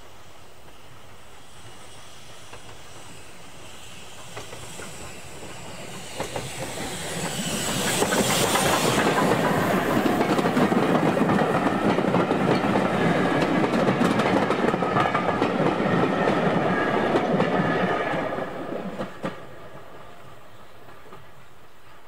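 A steam-hauled train led by LSWR O2 class tank engine No. 24 Calbourne approaches and passes close by with its vintage carriages. The sound builds to a loud rush of wheels on rail, with clicks over the rail joints, then falls away quickly near the end.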